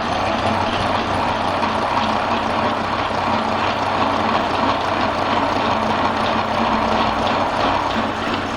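Milling machine running with the cutter working metal: a steady mechanical noise over a low hum, with faint ticks.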